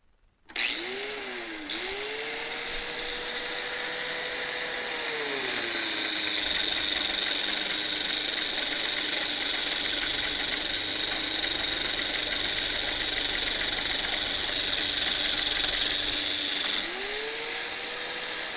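Harbor Freight corded angle grinder with a sanding flap disc switches on and runs up to full speed, about 9,000 RPM. About five seconds in, a weighted arm presses steel onto the disc: the motor's pitch drops as it bogs down to around 6,000 RPM under the load, with a steady grinding hiss of metal being sanded. Near the end the load comes off and the motor pitch rises back up.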